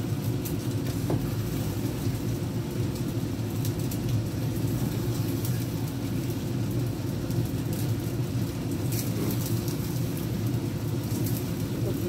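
Spatula stirring soft scrambled eggs and shrimp in a frying pan, with light scrapes and a soft sizzle, over a steady low hum that is the loudest sound.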